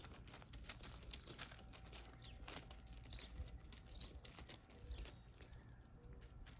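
Faint, irregular clicks and crunches of a goat's hooves on loose gravel as it walks and grazes.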